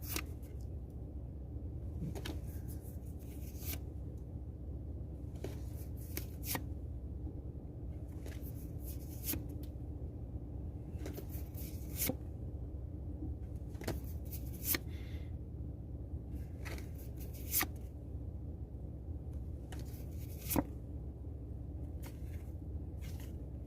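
Pokémon trading cards being flipped through one by one, each card sliding off the stack with a short, sharp papery snap at irregular intervals of about a second or two, over a steady low hum.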